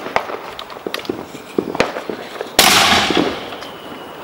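A consumer firework on the pavement goes off about two and a half seconds in with a sudden loud blast that fades over about a second. Before it, scattered sharp pops of other fireworks are heard.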